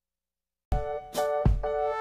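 Dead silence, then background music starts abruptly under a second in: a keyboard melody over a beat with regular low kick thumps.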